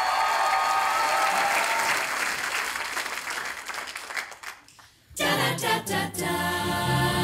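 Audience applause and cheering that dies away about four seconds in. After a brief hush, a small amplified choir starts singing, about five seconds in.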